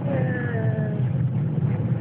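Steady low rumble of a car being driven, heard from inside the cabin. Near the start, a short tone slides down in pitch and fades in under a second.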